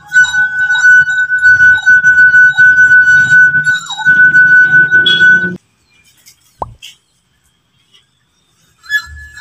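Stemmed wine glass three-quarters full of liquid singing as a wet finger circles its rim: a loud, steady, high ringing tone over a faint rubbing sound, which stops about five and a half seconds in. Near the end a half-full glass starts singing at a slightly higher pitch.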